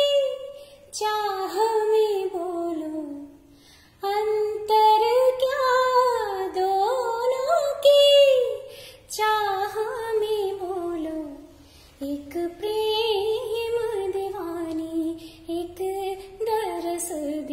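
A woman singing solo in long phrases, her voice sliding and bending in pitch through ornamented turns, with two short breaks between phrases.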